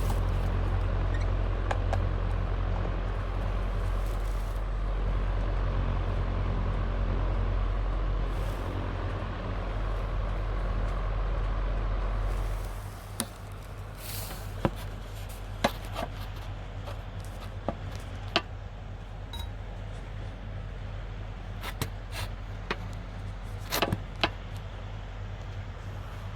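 Panasonic F-MX405-BC stand fan making an abnormal loud, steady low hum, the intermittent fault it is being returned for under warranty. About halfway through the hum cuts off suddenly, the sound disappearing after the oscillating clutch knob is pulled up. The fan keeps running more quietly, with scattered sharp clicks.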